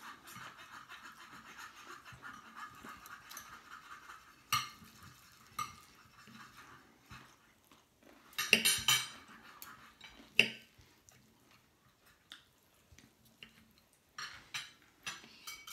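Knife and fork scraping across a plate for the first few seconds, then scattered clinks of cutlery on dishes, the loudest a little past halfway.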